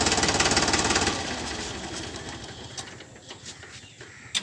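Farmtrac 45 tractor's diesel engine running with a fast, even knock, then shut off about a second in and dying away. A sharp click near the end.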